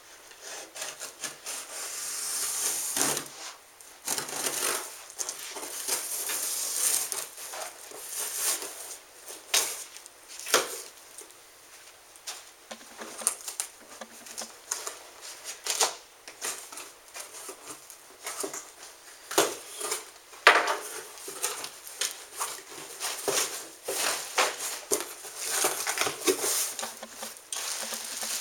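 Packing tape on a cardboard shipping box being slit and torn open, in irregular scraping rasps and sharp ticks, with cardboard flaps pulled apart and plastic wrapping rustling near the end.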